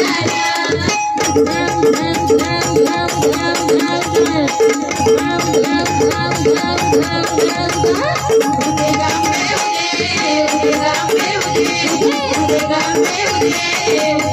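Live gondhal devotional music: women singing with harmonium, pakhawaj and tabla drumming, and small hand percussion keeping a steady beat about three times a second.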